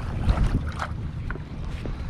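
Strong wind buffeting the microphone on a kayak in choppy water, an uneven low rumble with a few short knocks and splashes.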